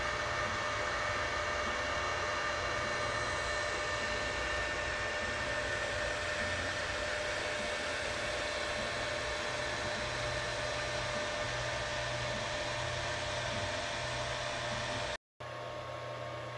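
Creality Ender 3 V2 3D printer running mid-print: a steady fan noise with several faint steady tones and a low hum. It breaks off for a moment near the end and carries on a little quieter.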